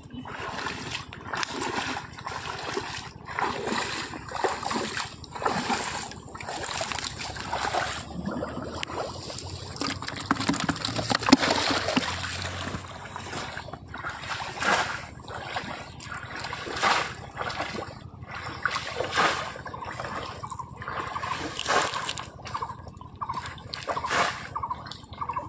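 Shallow water splashing and sloshing in repeated surges about once a second, as water is stirred by hand during polo-basket fishing.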